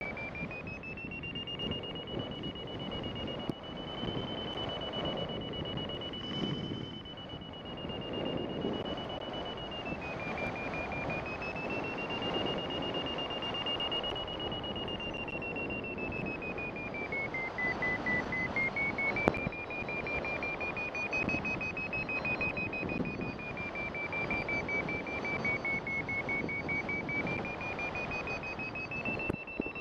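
A paragliding variometer sounds a continuous high tone. Its pitch drifts slowly up and down with the climb rate, over steady wind rush on the microphone. The unbroken tone is the sign of strong lift while the glider is being drawn up inside a cloud (cloud suck).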